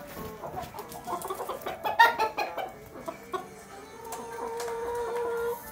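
Chickens clucking in a run of short calls, the loudest about two seconds in.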